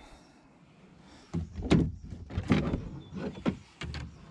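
Knocks and scrapes of hard plastic gear being handled against a plastic kayak. They start about a second in and come irregularly, with a few sharp knocks among them.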